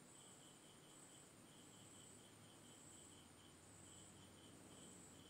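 Near silence: room tone with a faint high chirping that repeats about three or four times a second.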